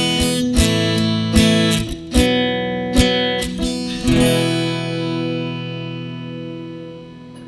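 Ibanez AEL207E seven-string acoustic-electric guitar strummed in chords, a strum every half second or so, then a final chord about four seconds in that is left ringing and slowly fades out, closing the song.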